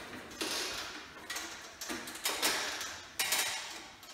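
Handling noise: about five short scratchy scrapes, each starting sharply and fading within a second, as a smoke alarm's plastic base and a pen are worked against the ceiling.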